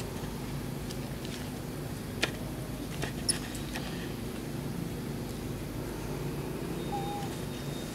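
Long-tailed macaques giving a few brief, high squeaks, with some light clicks, over a steady low background hum.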